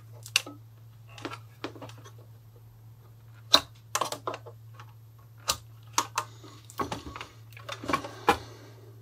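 Irregular sharp clicks and knocks of hand tools and metal parts being handled while a UPS is taken apart to free its transformer, over a steady low hum. The loudest knock comes about three and a half seconds in.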